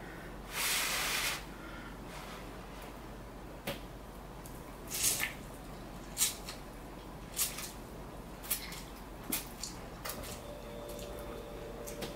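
A breath blown over a chopstick-load of hot instant ramen noodles to cool them, about a second long near the start. Then short, wet slurping and chewing noises as the noodles are eaten, coming every second or so.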